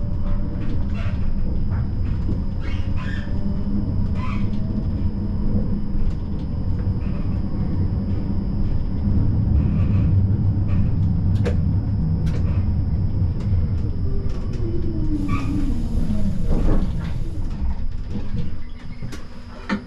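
Siemens Combino tram (GVB 13G) running on its rails, heard from the driver's cab: a steady low rumble with scattered clicks of the wheels over rail joints and points. About three quarters through, a whine falls in pitch as the tram slows, with a brief hiss, and then the sound drops away.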